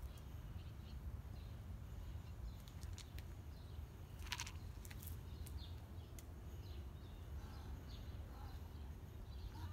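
Quiet outdoor background: a steady low rumble with faint, scattered bird chirps and a few soft clicks.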